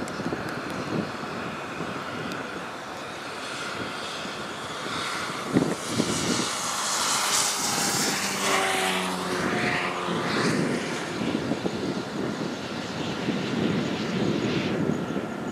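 An aircraft passes overhead. Its engine drone swells up about six seconds in, and its tones drop steadily in pitch as it goes by, then fade over steady background noise.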